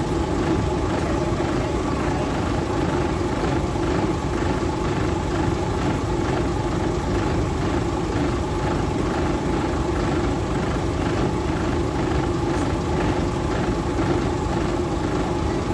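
Train engine idling while the train stands at a platform: a steady low rumble with a faint regular throb about twice a second.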